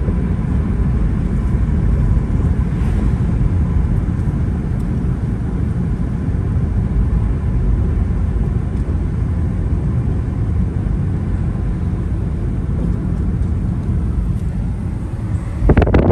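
Jeep Wrangler JK driving, a steady low rumble with a faint thin tone over it. Just before the end a sudden louder rush breaks in.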